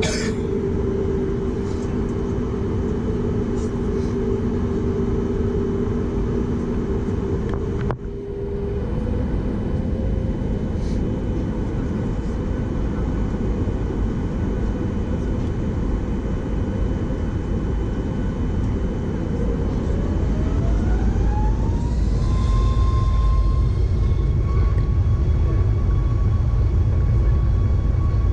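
Boeing 737 MAX 8's CFM LEAP-1B engines heard from inside the cabin: a steady whine over a low rumble, then about twenty seconds in the engine whine rises in pitch and the rumble grows louder as thrust is brought up for takeoff.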